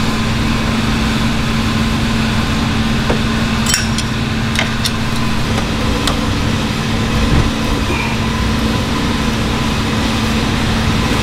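Steady hum of shop air conditioning with a constant low tone, and a few light metallic clicks from a wrench on the cam gear bolts about four to six seconds in.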